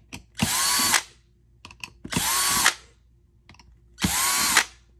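Cordless electric screwdriver running in three short bursts of about half a second each, backing screws out of an airsoft rifle's gearbox shell. Faint clicks sound between the bursts.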